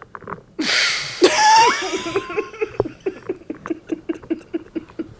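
People laughing hard: a sharp burst of breath, a high squealing laugh, then a long run of quick laughs, about five a second.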